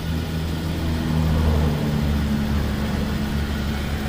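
3.6-litre Pentastar V6 of a Ram 1500 pickup idling steadily, its hum shifting slightly about a second in. The commanded grille shutters are not moving, so no shutter motor is heard.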